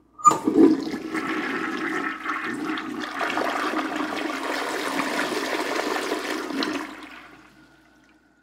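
A toilet flushing: a short clunk, then a loud rush of swirling water that drains away and fades out near the end.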